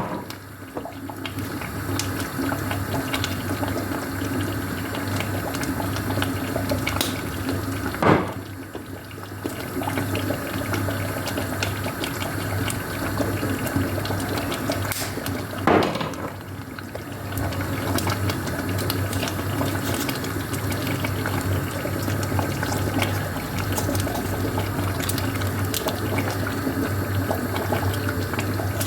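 Water running steadily in a kitchen over a low hum, with two brief loud knocks, about a quarter and halfway through.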